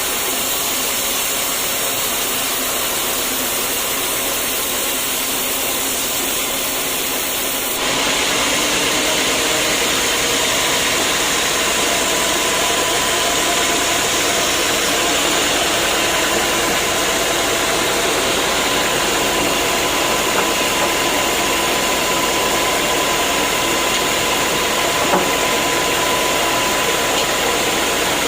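Sawmill machinery running steadily. About eight seconds in, the sound changes abruptly and gets louder, and a steady whine runs through the rest.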